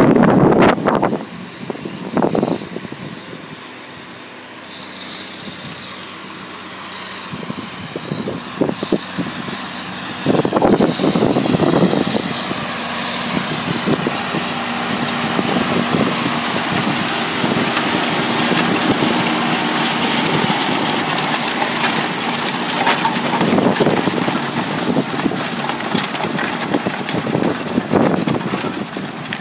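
John Deere tractor engine running under load, its noise swelling as it draws close around the middle and easing off near the end. Wind buffets the microphone in gusts, the strongest right at the start and again about ten seconds in.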